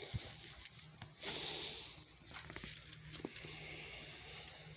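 Faint rustling and scattered light clicks of a hand-held phone being moved about, over a low steady hum.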